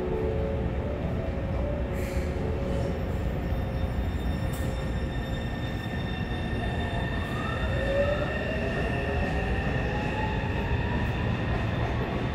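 Taipei Metro C301 train pulling out of an underground station: a steady rumble of the cars on the rails, with an electric whine that rises in pitch over the second half as the train speeds up.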